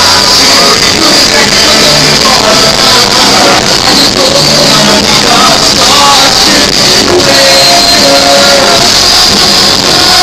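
Live rock musical number with a band and singing, recorded from the audience in a hall; the sound is loud and of poor quality.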